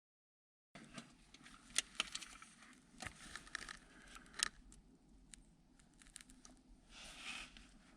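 Metal parts and tools being handled: a scattering of sharp clicks and clinks with rustling, and a short scraping rush near the end. It starts after a moment of dead silence.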